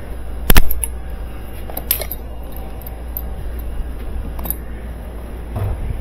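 Metal tool handling: a sharp metallic click about half a second in, a smaller click near two seconds and a few light ticks, as the air hammer and its bolt attachment are handled. A steady low hum runs underneath.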